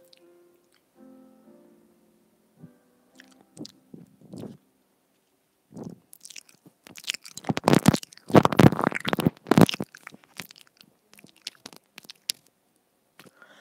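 Close-up mouth sounds on a wired earbud's inline microphone as it is nibbled and licked: crunchy crackles and wet clicks, heaviest and loudest from about six to ten seconds in, then sparser clicks.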